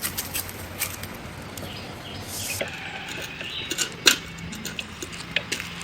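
Scattered metallic clicks and knocks from screws and steel rods being loosened and taken off a pedal-powered washing machine's frame, with one louder knock about four seconds in.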